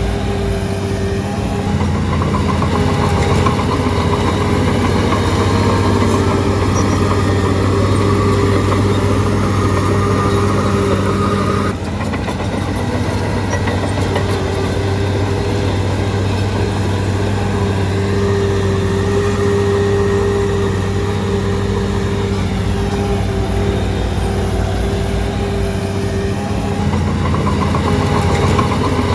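Shantui DH17C3 bulldozer's diesel engine running steadily, with a brief dip in level about twelve seconds in.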